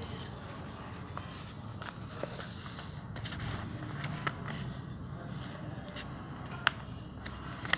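Sheets of craft paper being handled and folded, giving soft scrapes and occasional crackles, with one sharper tick near the end, over a steady low background noise.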